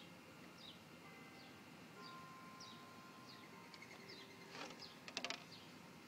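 Faint, distant church bells with sustained notes ringing on, over a bird's short falling chirps repeated about every second. A few sharp clicks come about five seconds in.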